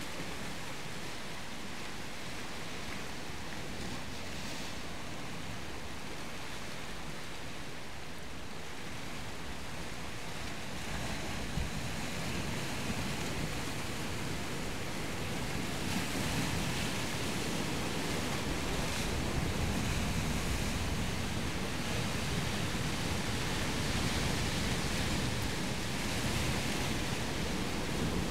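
Steady rush of sea waves breaking, with wind on the microphone; it grows a little louder about eleven seconds in.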